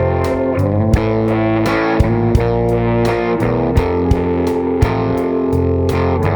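Background rock music with distorted electric guitar chords and a steady drum beat.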